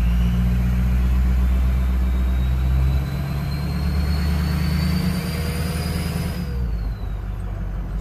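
Ford 6.0 Powerstroke V8 turbo diesel accelerating with a trailer in tow, heard from inside the cab. Under the engine's rumble, the turbo's whistle rises steadily in pitch for about six seconds, then drops away as the throttle eases.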